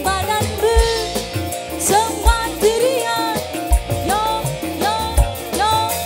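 Live dangdut music: a melody of sliding, bending notes over a steady percussion beat, with a deep drum thump about every second and a half.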